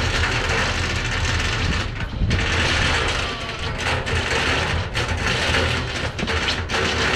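Clear plastic bubble wrap being crumpled and crinkled in a child's hands, an irregular crackling rustle, over a steady low rumble.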